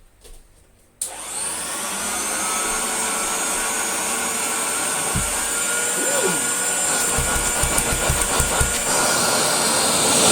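Hoover Junior 119 upright vacuum cleaner switched on about a second in, its motor winding up to a steady run with a high whine. The belt is off, so only the motor and fan are running, drawing through the fitted hose. A few low knocks come in the middle.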